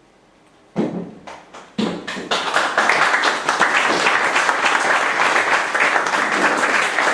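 Audience applauding: a couple of single claps about a second in, then the clapping fills in into steady applause from about two seconds in.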